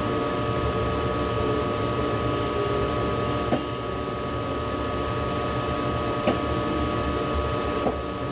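Steady hum inside the driver's cab of an ICE high-speed train: a low rumble under a constant high whine from the cab equipment, with three short clicks spread through it.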